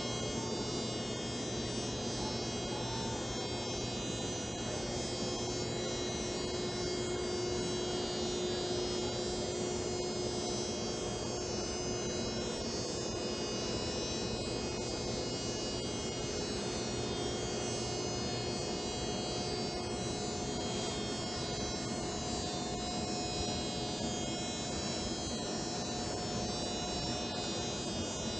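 Medical linear accelerator running during radiation treatment: a steady electrical hum and whine with several high, fixed tones, unchanging while the gantry turns around the couch.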